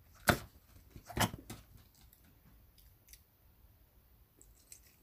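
Two sharp clicks, about a third of a second and just over a second in, then faint mouth sounds of someone eating rice noodles.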